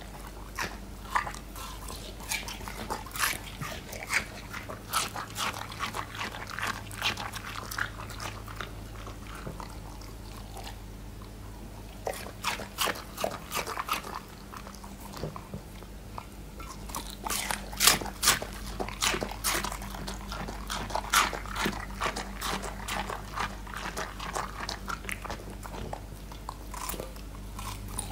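Border collie chewing and crunching bites of watermelon, a long run of wet crunches and smacks that thins out for a few seconds about ten seconds in, then picks up again.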